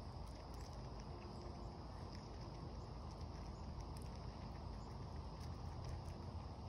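Steady high-pitched insect chorus over a low outdoor rumble, with a few faint scattered clicks.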